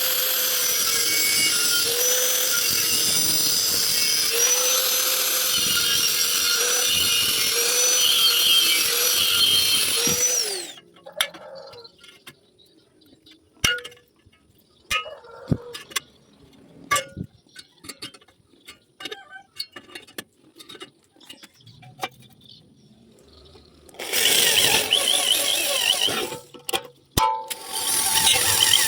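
A handheld power tool runs under load for about ten seconds, its pitch dipping now and then. Then comes a quiet stretch of scattered light clicks and taps, and the tool runs again in two short spells near the end.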